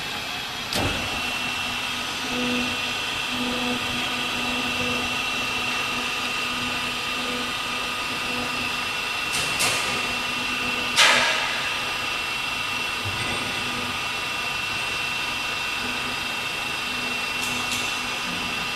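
A machine running steadily with a constant high-pitched whine over a low hum, broken by a few short, sharp hissing or knocking bursts, the loudest about eleven seconds in.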